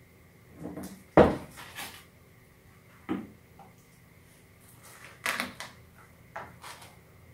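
Handling of 110 Ah LiFePO4 prismatic battery cells in a foam-lined wooden crate: a few separate knocks and clunks as cells are set down and shifted against each other. The sharpest knock comes about a second in, with others around three and five seconds in.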